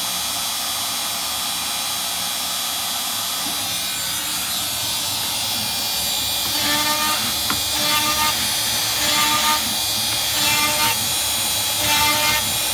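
Shapeoko 3 CNC router running with its spindle spinning steadily. From about halfway through, a pitched whine starts and stops in short stretches roughly once a second as the bit moves down into the plywood workpiece and cuts.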